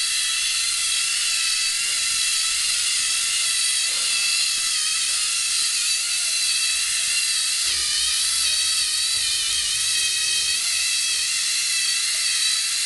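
LEGO Mindstorms NXT robot's electric drive motors running its treads: a steady high-pitched gear whine made of several stacked tones. The pitch shifts slightly about eight seconds in, followed by a low rumble for a few seconds.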